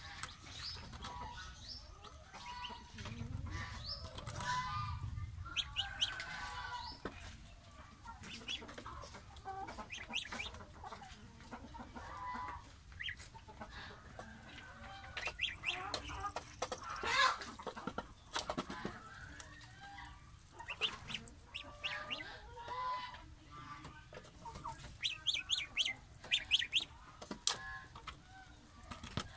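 A gosling and a duckling peeping and giving short calls throughout, over frequent clicks and knocks of bills pecking at a plastic feeder.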